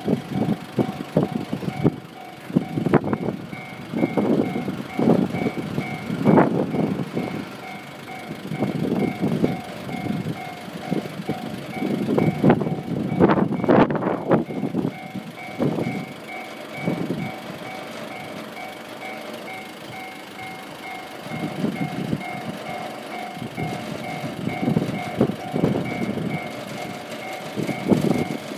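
Japanese railway level-crossing alarm ringing, an evenly repeated two-tone electronic clang, while a train passes over the crossing with uneven clattering and rumbling from its wheels on the rails.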